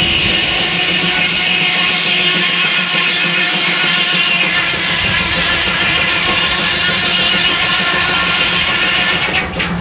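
Sawmill circular saw blade cutting through a log: a steady, loud, high-pitched whine over a rasping noise, which breaks up into separate clicks and knocks near the end.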